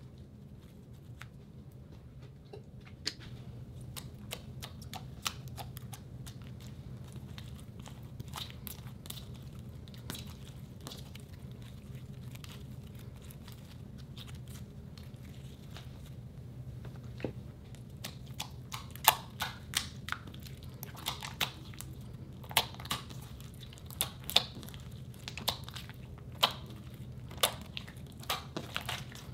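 Glossy slime being stretched, folded and kneaded by hand, making wet, sticky clicks and small pops. The clicks are sparse at first and come thicker and louder in the second half.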